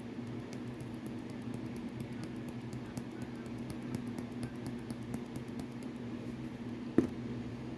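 Honey hickory seasoning rub being shaken out of its container: faint, dry rattling ticks over a steady low hum, with one sharper knock about seven seconds in.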